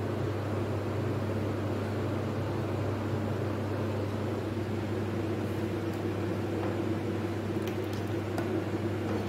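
Steady low mechanical hum, like a kitchen appliance or fan running, with a few faint clicks near the end from a ladle stirring haleem in a metal pot.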